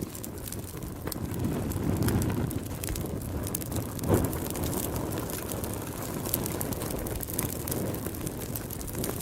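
Fire burning with a low, surging roar and constant fine crackling, with one louder pop about four seconds in.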